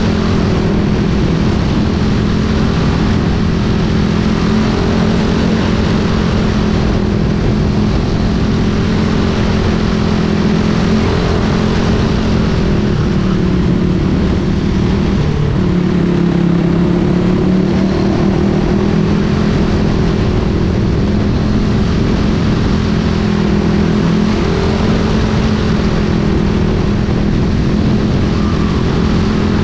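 Quarter midget race car's single-cylinder Briggs & Stratton Animal engine running at racing speed, heard onboard, its pitch dipping and rising again now and then as the car goes around the oval.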